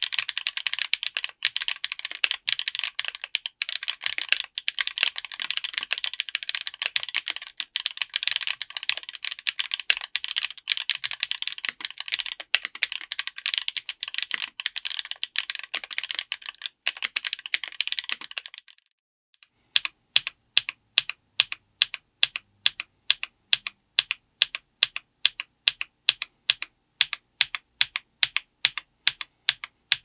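Mechanical keyboard with Akko V3 Cream Black Pro linear switches, GMK ABS Cherry-profile keycaps and an FR4 plate in an aluminium case, typed on fast and continuously. The typing stops about two-thirds of the way through. After a short pause, single keys are struck at an even pace of about two a second.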